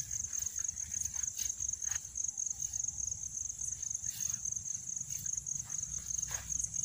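Night insects trilling, a high, steady, fast-pulsing chirr that runs on without a break, typical of crickets. Faint scattered rustles and ticks of someone walking through vegetation sit beneath it.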